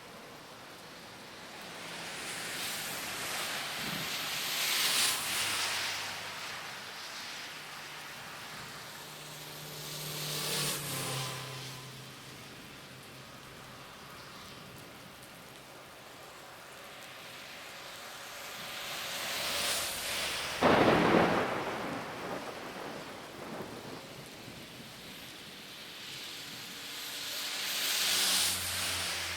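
Cars passing one after another on a wet highway, their tyres hissing through the water on the road. Each pass swells and fades; about four go by, and the loudest comes about two-thirds of the way through.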